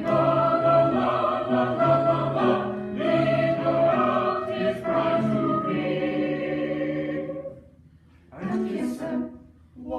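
Choir singing sustained chords in several voice parts. The singing dies away about seven and a half seconds in, and a short sung phrase follows about a second later.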